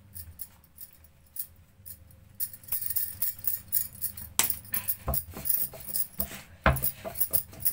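Bangles clinking and the wooden rolling pin and rolling board knocking as a dough ball is set down and rolled out. It is mostly quiet for the first couple of seconds, then light clinks, with several louder knocks in the second half.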